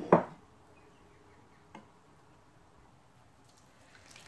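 Near silence: faint kitchen room tone, after a brief sharp sound right at the start.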